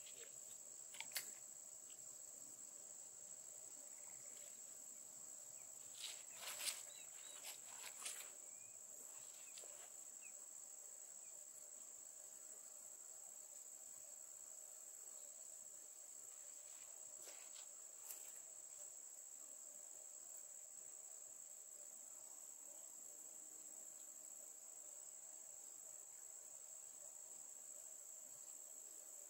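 Faint, steady, high-pitched chorus of crickets, with a few soft clicks and knocks about a second in, again between six and eight seconds, and once more around seventeen seconds.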